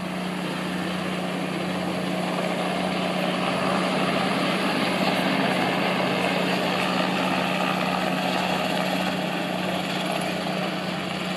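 Helicopter flying past: a steady engine and rotor drone with a regular low pulsing beat, growing slightly louder over the first few seconds.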